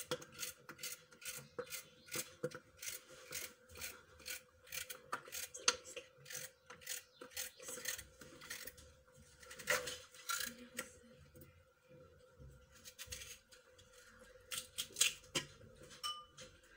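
Knife cutting rounds off a raw carrot held in the hand, a quick series of crisp cuts about two or three a second. The cutting thins out for a few seconds past the middle and picks up again near the end.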